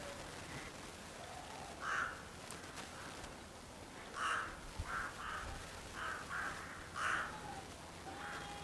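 A flock of crows cawing: a string of short caws, about eight, from about two seconds in, some coming in quick pairs.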